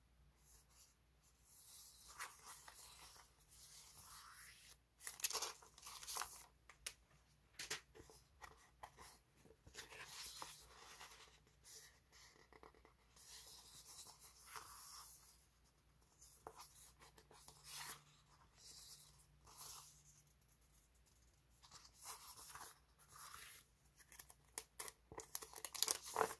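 Sheets of printed paper stickers being handled and shuffled: irregular crisp paper rustles and slides with a few sharper snaps, busiest near the end.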